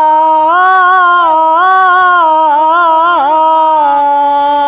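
A man singing a Bengali folk song unaccompanied, holding one long note. The pitch lifts a little about a second in, wavers in small ornaments, dips in a quick turn near three seconds, then settles and holds steady.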